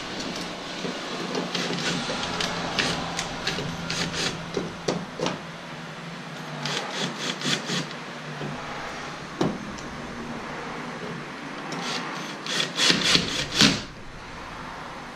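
Cordless drill/driver running bolts through a metal transom plate into threaded inserts moulded into a plastic hull. A motor hum is heard, with runs of sharp clicking, loudest near the end.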